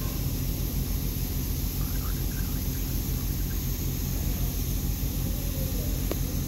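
Steady low machine drone, a motor running without change, with a single light tap near the end.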